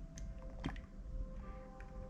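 Slime worked by hand, making small sticky clicks and pops, over background music with held notes. The loudest click comes about two-thirds of a second in.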